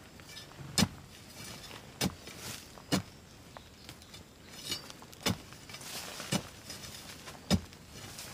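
A hand tool striking and scraping into earth and stones: six sharp, irregular knocks about a second apart, with scraping and rustling of soil and dry leaves between them.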